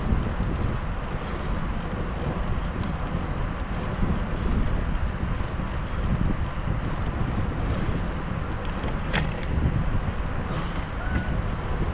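Wind rushing over an action camera's microphone on a moving bicycle, a steady low rumble, with a single sharp click about nine seconds in.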